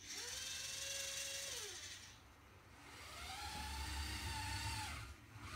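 Carson H40D RC model forklift's electric drive motor and gears whining as it drives, twice: each time the whine rises in pitch, holds steady, then falls away as it slows. The second run is higher-pitched.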